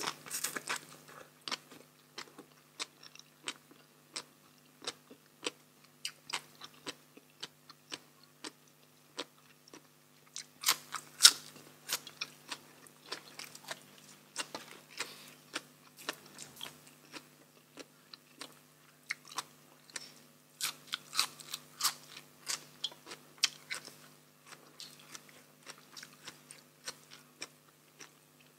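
Close-miked chewing and crunching of papaya salad and raw vegetables, a steady run of wet, crisp mouth clicks. The sharpest crunches come in clusters about eleven seconds in and again past the twenty-second mark.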